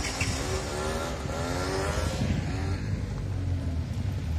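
A motor scooter's small engine accelerating close by, its pitch rising over the first two seconds, over the steady low rumble of car engines running.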